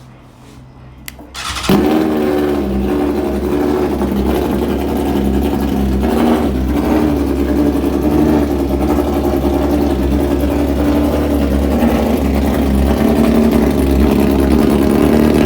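BMW S1000RR's inline-four engine, breathing through a full stainless aftermarket exhaust, being cold-started. After a faint hum and a click, the engine cranks and catches about a second and a half in. It then idles steadily and loudly.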